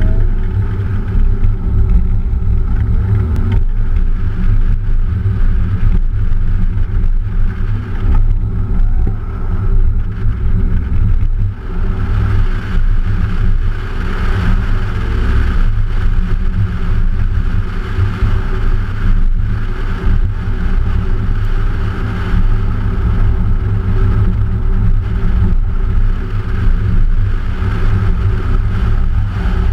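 A car driven through an autocross course, heard from a camera on the outside of the passenger door. The engine note holds fairly steady under a heavy wind rumble on the microphone, and a higher hiss grows louder from about twelve seconds in.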